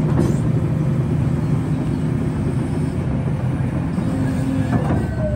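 Hidromek 310 tracked excavator's diesel engine running steadily as the boom and bucket work the ground, with a brief higher whine near the end.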